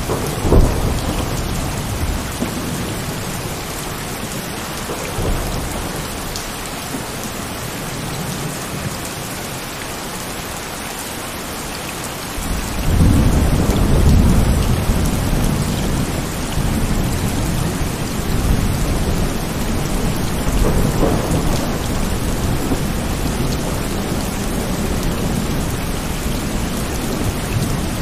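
Heavy rain falling steadily, with rolling thunder rumbling low near the start and a louder, longer roll beginning about halfway through.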